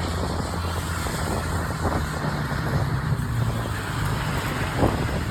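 Car engine running at low speed with a steady rough hiss. The hiss is a canoe's hull being dragged over parking-lot pavement behind the car.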